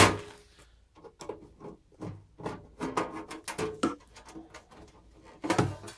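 A screwdriver working on the top cover of a Hill Audio LC400 power amplifier, making a string of small, irregular clicks, taps and scrapes as the screws are backed out and the cover is worked loose. There is a louder scrape near the end.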